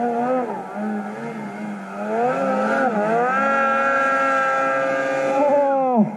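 A snowmobile engine revving under throttle. Its pitch wavers and climbs over the first three seconds, holds steady at high revs, then drops sharply near the end as the throttle comes off.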